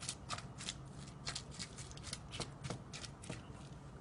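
Spatula stirring a thick oat, pumpkin and peanut butter dough in a ceramic bowl: a quick, uneven run of short scrapes, about three a second.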